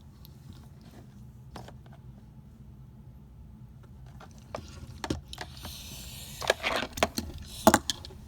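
Car cabin noise while driving: a steady low rumble from the road and engine. About halfway through, a run of sharp clicks and knocks starts, with a hiss, and it is loudest near the end.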